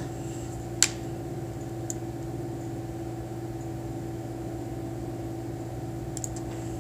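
Steady low machine hum with a few fixed tones, and a single sharp click about a second in.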